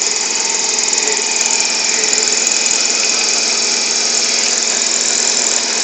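CNC machine running steadily while machining a 1/4-inch hexagon in stainless steel: an even mechanical whir with several fixed tones and a hiss.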